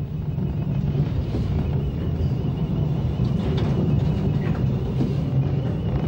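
Electric tram running along a city street with other traffic: a steady low rumble with a faint, constant high whine over it.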